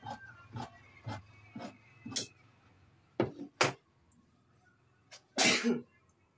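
Large tailor's scissors snipping through cotton cloth on a cutting table, about two snips a second, stopping after about two seconds. A little after three seconds come two sharp knocks, and past five seconds a loud, brief rustle of cloth being shifted on the table.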